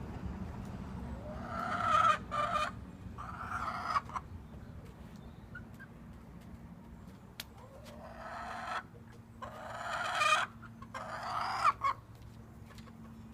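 A chicken calling loudly in two bouts about six seconds apart, each a run of three drawn-out, pitched notes. A faint low hum sits underneath.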